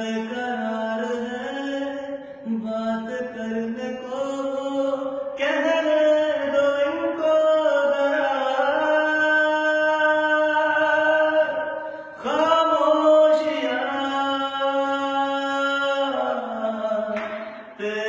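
A man singing unaccompanied, drawing out long held notes that slide slowly in pitch, with short breaths between phrases about twelve seconds in and near the end.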